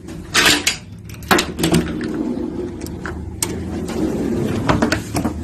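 Hotel room door being unlatched and opened: sharp clicks and knocks of the handle and latch, the loudest about half a second in and more spread through the rest, over a steady low hum.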